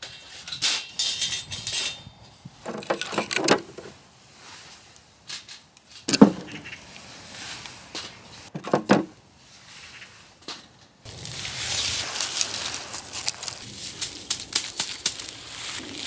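A few knocks and clunks of firewood being handled, the two loudest about six and nine seconds in. From about eleven seconds on, footsteps crunch and rustle through dry leaf litter, with small twig snaps.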